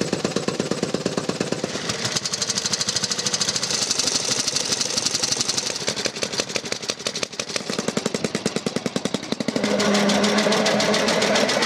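Veteran motorcycle engines built before 1915 running, a rapid, even beat of firing strokes that changes as one machine gives way to another. About three-quarters of the way in it turns louder and steadier.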